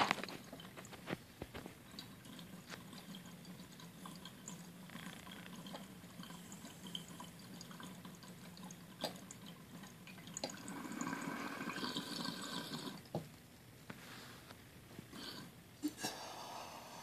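Water bubbling faintly in a glass dab rig as a hit is drawn through it, fuller for a few seconds after about ten seconds in. Scattered sharp clicks, the loudest right at the start.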